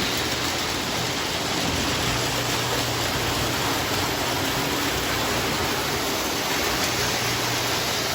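Steady rushing noise of a Lionel O-gauge toy train running on its track, with a low hum that comes and goes.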